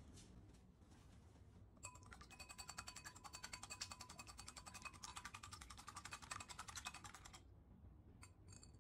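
Wire whisk beating raw eggs in a glass bowl: rapid, regular clicking of the whisk wires against the glass, starting about two seconds in and stopping about seven seconds in, followed by a few single taps near the end.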